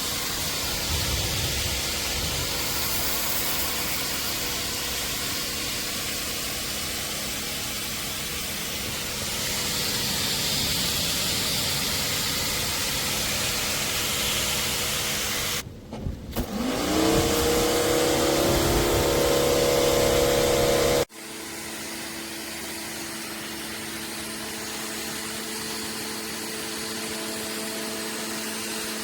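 Pressure washer running, its motor humming under a steady hiss of spraying water. About sixteen seconds in it briefly drops out and the motor hum rises as it spins back up. A few seconds later the sound cuts off abruptly to a quieter, steadier motor hum.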